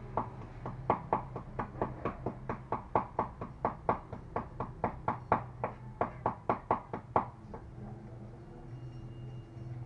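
Meat cleaver chopping rattan shoots held in the hand, in quick knocks about four a second, which stop about seven seconds in.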